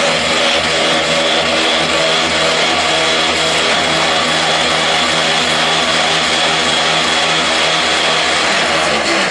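Mobile concrete block-making machine running: a loud, steady mechanical hum whose pitch holds even throughout.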